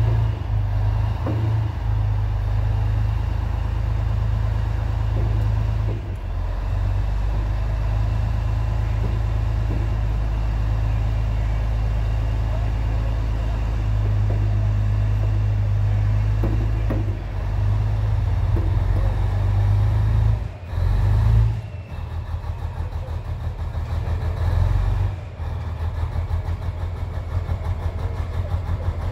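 Heavy tracked recovery vehicle's engine running under load while its crane boom holds up a tank track unit. The rumble dips and shifts a few times, and after about 25 seconds it settles into an even, fast pulsing, like an idle.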